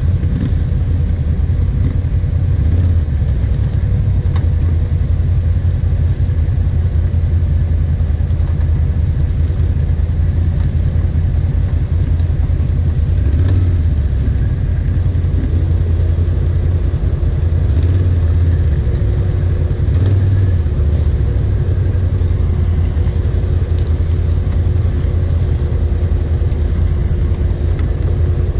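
Kawasaki KVF 750 Brute Force ATV's V-twin engine running steadily at low revs while the quad crawls along a rutted mud trail, with small swells as the throttle is worked. A steady hum comes in about halfway through and holds to the end.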